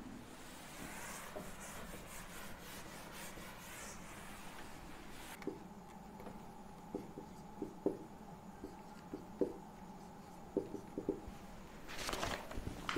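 Dry-wipe marker writing on a whiteboard. It starts as a scratchy rubbing for about five seconds, then turns into quieter short strokes and taps as letters and numbers are written. Paper rustles near the end.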